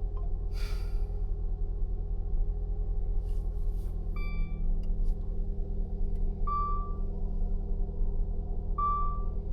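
Diesel dump truck engine idling with a steady low rumble, heard from the cab, while an electronic warning chime beeps about every two seconds. There is a short hiss about half a second in.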